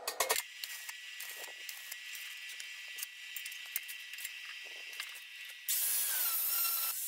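Stick arc welding on a steel gas-cylinder stove body: the arc strikes with a few sharp cracks, then settles into a steady crackling sizzle. About five and a half seconds in, an angle grinder runs louder for a little over a second, its whine dipping slightly.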